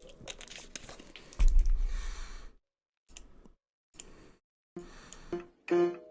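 Scattered clicks and handling noises, with a loud low thump and rumble about a second and a half in. Near the end, plucked-string music starts in short bursts.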